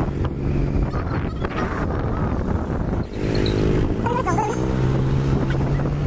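Motorcycle engine running steadily as the bike is ridden along a road, heard from on board as a constant low hum.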